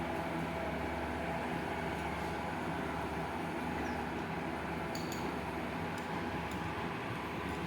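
Train engine running steadily: an even, unbroken hum with several steady tones and a few faint ticks about five seconds in.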